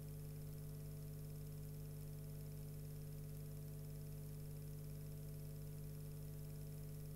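Steady low electrical hum with faint hiss, with no sound from the fire itself.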